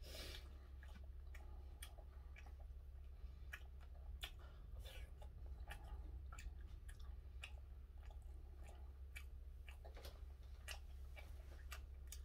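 Quiet chewing with scattered light clicks of wooden chopsticks against a plastic lunch-box tray, over a steady low hum.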